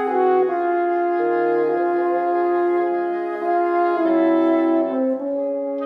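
Woodwind quintet of flute, oboe, clarinet, French horn and bassoon playing together. Several held notes sound at once and move to new chords every half second to a second, with the horn and bassoon prominent.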